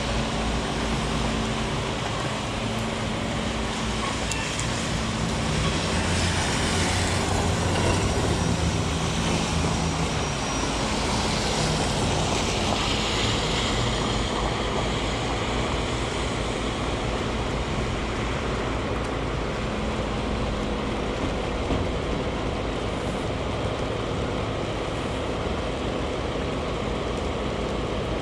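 Heavy rain on a city street, with traffic passing on the wet road; one vehicle swells louder and fades again partway through.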